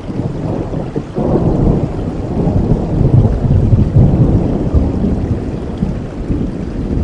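Thunder rumbling over steady rain: it starts suddenly about a second in, grows to its loudest in the middle and eases off near the end.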